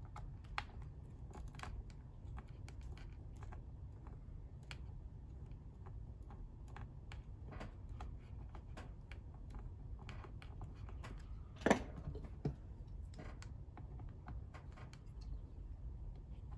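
Small screwdriver turning screws out of the plastic underside of a Lenovo ThinkPad T60 laptop: scattered light clicks and scrapes of the bit on the screws and case, with one sharper click about two-thirds of the way through, over a steady low hum.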